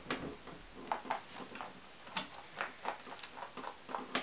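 A hare moving about on a plywood box: about a dozen light, irregularly spaced clicks and taps.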